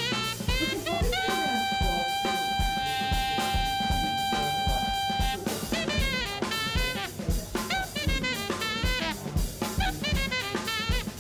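Background music with a steady drum kit beat and a melody of quick sliding notes, with one long note held for about four seconds near the start.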